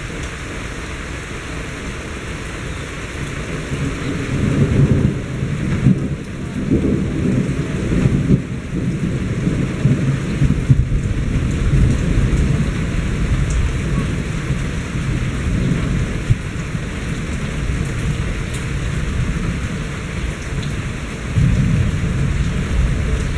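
Steady rain of a thunderstorm falling, with thunder rolling and rumbling through it. The rumbling swells about four seconds in, stays heavy for several seconds, and swells again near the end.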